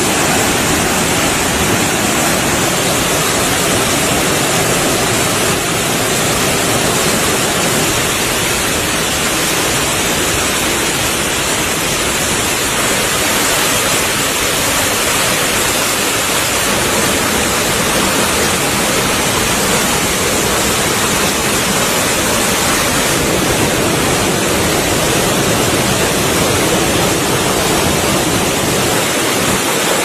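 A large waterfall in heavy flow: a loud, steady rush of falling and churning water that never lets up.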